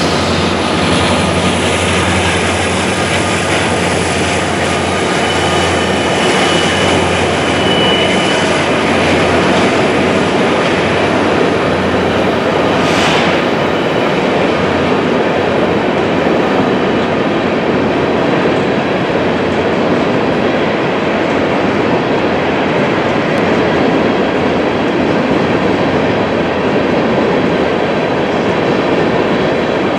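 Empty BNSF coal train passing: the diesel hum of a BNSF SD70ACE locomotive fades in the first few seconds, then a steady run of coal hopper cars rolls by with wheel and rail noise. A brief faint wheel squeal comes a few seconds in.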